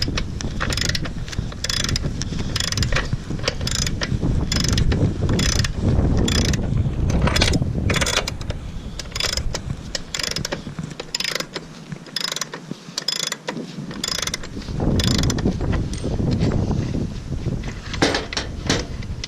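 Hand ratchet with a 36 mm socket clicking in steady repeated strokes, about two a second, as the motorcycle's rear axle nut is worked off; it pauses briefly past the middle, then clicks again.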